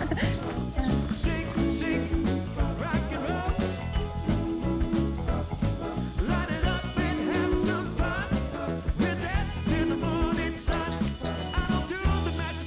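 Background music: an upbeat swing-style song with singing over a steady bass beat.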